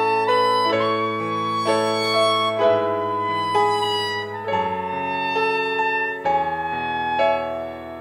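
Instrumental passage of a worship song with no singing: a held, smooth melody line on a single melody instrument over piano chords.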